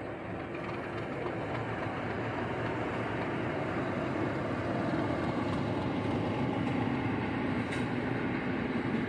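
Class 37 diesel locomotive, with its English Electric V12 engine running, passing with a freight train of JNA box wagons, the wagon wheels rolling on the rails. The sound grows louder as the locomotive comes past.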